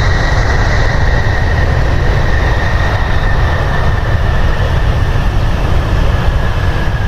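Jet airliner engines running loud: a deep rumble under a steady high whine that drifts slowly lower.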